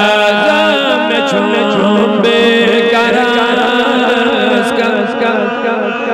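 A man chanting a devotional manqabat (Sufi praise poem) in long drawn-out melodic notes that slide between pitches.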